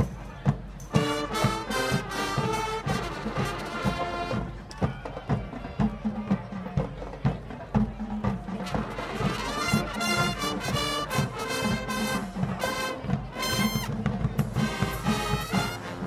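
Marching band playing a Motown arrangement: a steady drum beat with the brass section coming in about a second in, lower brass carrying the line in the middle and high trumpets coming back near the end.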